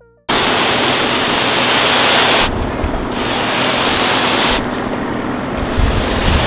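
Loud wind rushing over the microphone, with a heavy buffeting rumble underneath. It cuts in abruptly just after the start, and the higher hiss dips briefly twice.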